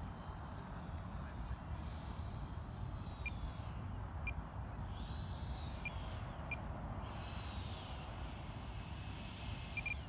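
Outdoor ambience with a steady low wind rumble, a few short bird chirps and a high buzz pulsing about once a second. The twin electric ducted fans of the RC F-14 jet whine faintly, rising then falling in pitch in the middle, as it comes in to land.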